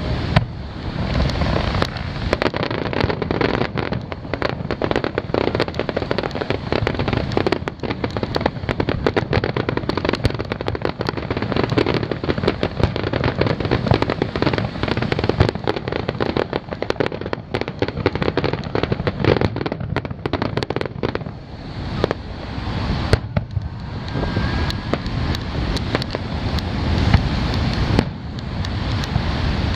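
Aerial fireworks display: a dense, continuous run of shell launches, bursts and crackling bangs, thinning briefly about three-quarters of the way through.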